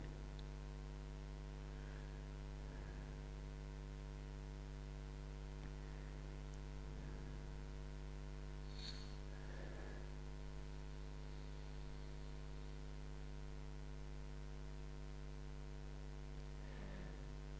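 Steady electrical mains hum picked up by the recording: a low, even buzz with many evenly spaced overtones, unchanging throughout.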